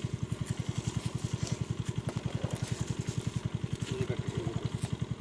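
Small engine running steadily, a fast even thumping of about a dozen beats a second.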